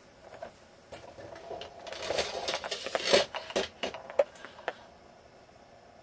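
Handling noise from a camcorder being picked up and moved: rustling with a string of knocks and clicks, loudest around the middle, then dying away.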